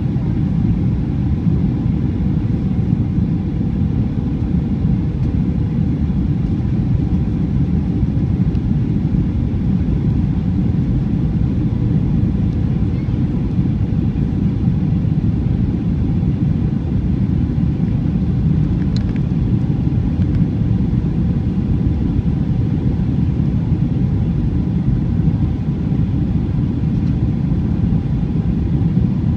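Steady low roar of a jet airliner's engines and airflow heard inside the passenger cabin while descending on approach to land, with a faint steady hum running through it.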